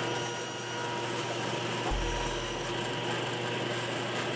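Table saw running, its blade cutting through a wooden board as the board is pushed through.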